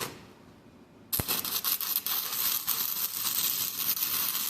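Stick-welding arc crackling and sizzling, struck briefly at the start and then running steadily from about a second in, as a washer is welded onto a bolt snapped flush with the engine block.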